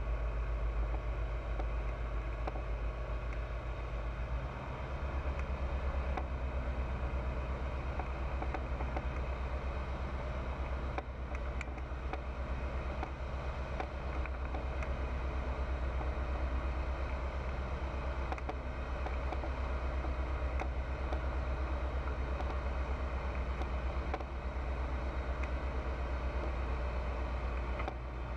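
Pipistrel Virus light aircraft in flight: its piston engine and propeller drone steadily, and the engine note shifts slightly about four seconds in.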